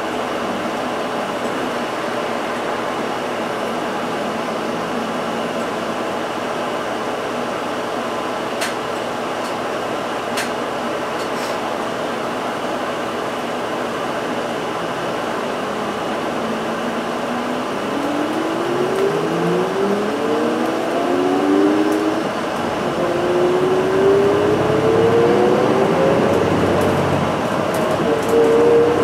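Interior running noise of an Isuzu Erga Hybrid (QSG-LV234N3) city bus. A steady cabin hum, broken by two sharp clicks about a third of the way in, is followed in the second half by a series of rising whines, the pitch climbing, dropping back and climbing again as the bus accelerates through its gears.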